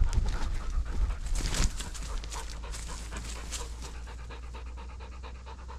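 German shorthaired pointer panting hard and fast, about four breaths a second, hot from hours of hunting on a warm day. Rumbling and rustling noise sits over it for the first second and a half.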